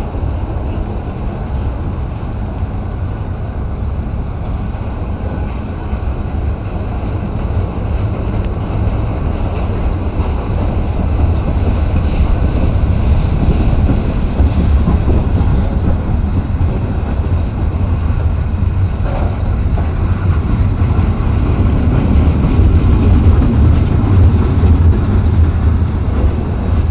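Freight train rolling past: a steady, heavy low rumble of wheels on the rails that grows a little louder about halfway through and again near the end.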